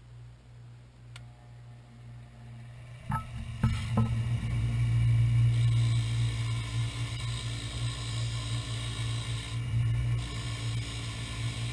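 Bench grinder's wire wheel brush spinning with a low hum; about three seconds in a pine root is pressed against the wheel and a loud, steady scraping sets in as the wire bristles strip bark and wood from the root.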